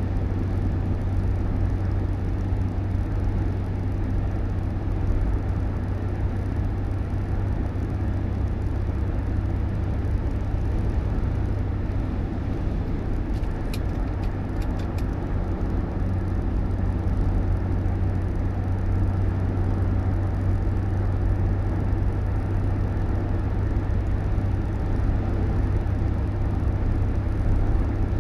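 Steady low rumble of a vehicle on the move, with a few quick clicks about halfway through.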